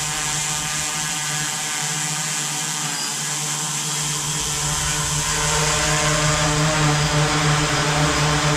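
ModalAI Sentinel quadcopter's motors and propellers hovering with a steady hum, which grows louder about halfway through. The drone is holding itself in position mode with the sticks released.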